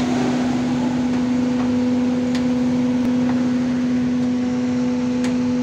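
Hydraulic truck tippler machinery running with a steady, even hum at one constant pitch over a background rush, with a few faint clicks.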